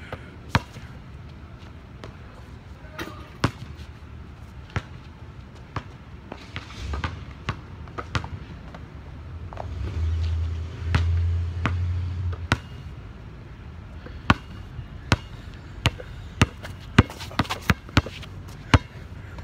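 Basketball bouncing on a hard court, sharp single bounces spaced out at first, then quicker dribbling at about two to three bounces a second near the end. A low rumble swells for a couple of seconds midway.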